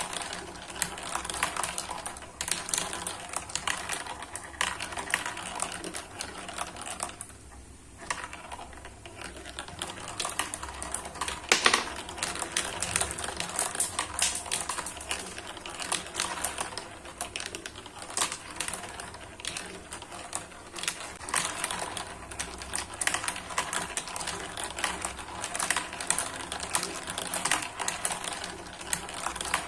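Marbles rolling and clattering down a spiral marble run track: a dense, irregular stream of small clicks and clacks, easing off briefly about a quarter of the way through, with one louder clack shortly after.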